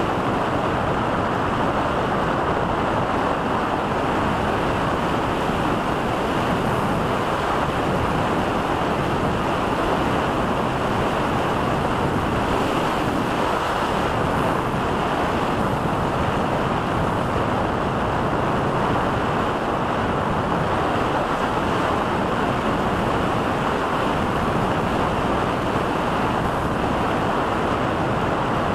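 Steady rush of airflow and wind over the onboard camera's microphone of an RC glider in flight, an even hiss with no engine or motor tone.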